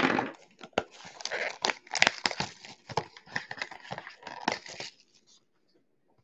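Plastic shrink-wrap crinkling and tearing as it is pulled off a sealed trading card box: a run of crackles and sharp snaps for about five seconds, then it stops.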